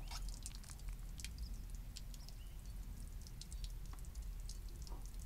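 Scattered small drips and ticks of water falling from the pickup truck onto wet pavement, over a low steady rumble.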